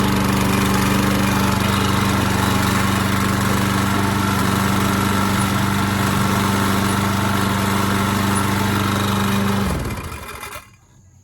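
Craftsman Gold walk-behind lawn mower's small four-stroke engine running at a steady speed, then shutting off about ten seconds in, the sound dropping in pitch and dying away.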